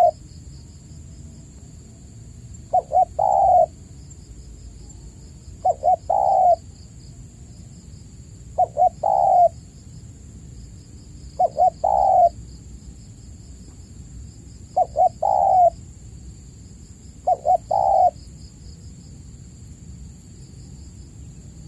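Spotted dove (tekukur) cooing: six phrases about three seconds apart, each two short coos then a longer, louder one, ending a few seconds before the end. Under it runs a steady high insect-like drone with pulsing chirps.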